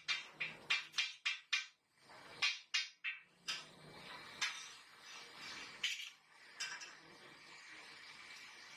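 Metal striking metal in quick, evenly spaced clanks, about three or four a second, that stop about two seconds in, followed by a few scattered clinks and knocks.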